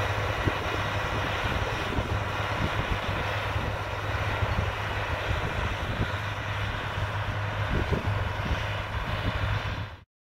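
Agco Allis 9785 tractor engine running steadily while it pulls a 16-row corn planter, with uneven low rumbles mixed in. The sound cuts off abruptly about ten seconds in.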